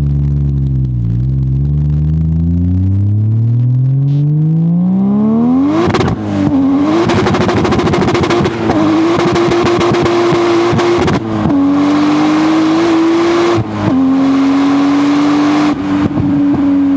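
Turbocharged 2JZ-GE straight-six of a 2002 Lexus IS300, heard from the rear bumper through its 3-inch turbo-back exhaust, accelerating hard: the revs climb steadily for about five seconds, then it runs loud at high revs, with short breaks in the sound at gear shifts about every two to three seconds.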